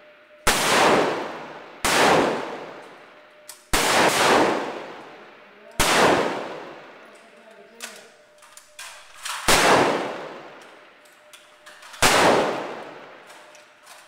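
Six rifle shots from a firing line, a second or two apart at irregular intervals, each with a long echoing tail. A few faint clicks come between the fourth and fifth shots.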